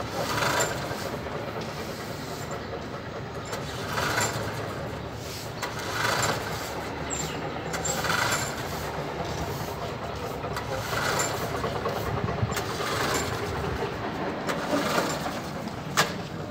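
Walk-behind rotary lawnmower's small petrol engine running, its sound swelling every couple of seconds. It runs after its carburetor, knocked out of line when the mower was tipped on its side, was set right. A sharp click sounds near the end.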